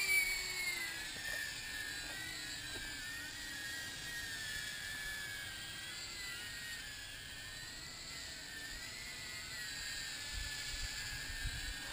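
Small 3D-printed cinewhoop drone with 1404 motors and 63 mm props hovering and manoeuvring gently: a steady high-pitched whine that wavers up and down in pitch as the throttle changes. Faint wind buffets on the microphone near the end.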